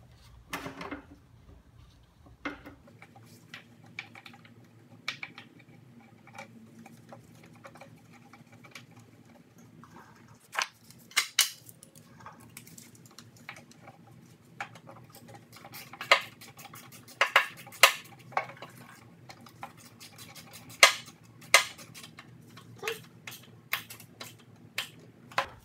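Irregular metallic clicks and clinks of bolts and hand tools being handled while parts are bolted onto a Briggs & Stratton mower engine, sharper and more frequent in the second half.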